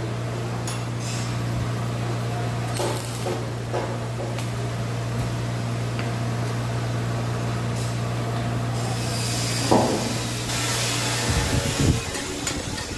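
Welding machine humming steadily, with scattered clicks and knocks, during welding work on iron sheet. The hum stops about ten seconds in and a low rumble follows.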